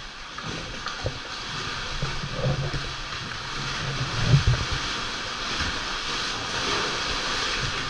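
Sea water surging and washing over the rocks of a sea cave: a steady rushing hiss with low thumps, the heaviest a little past the middle.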